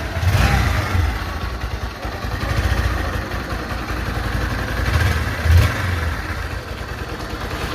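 Bajaj Pulsar NS160's single-cylinder engine running near idle with a few short throttle blips, and a tick-tick tappet noise from the valve rockers. The noise means the valve clearance has gone loose.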